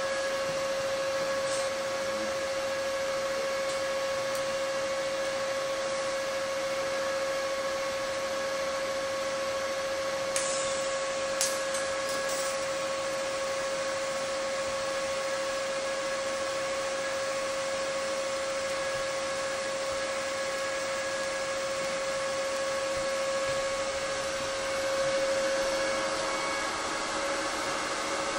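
TIG welding arc from a Lincoln Sprinter 180Si inverter welder on high-frequency start at about 100 amps, running on thin 14-gauge sheet with the current worked by a foot pedal: a steady hiss with a constant hum. Two short clicks a little after ten and eleven seconds in, and the sound swells slightly near the end.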